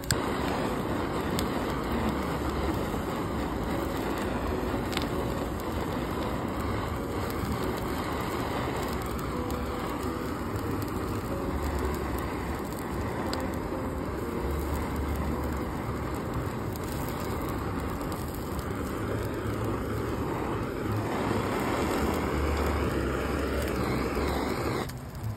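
Handheld kitchen blowtorch running with a steady hiss as it sears fish on a grill rack, cutting off near the end.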